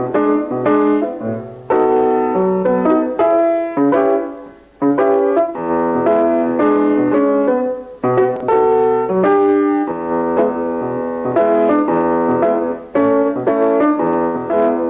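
Instrumental music, a melody over chords, with a short break about four and a half seconds in.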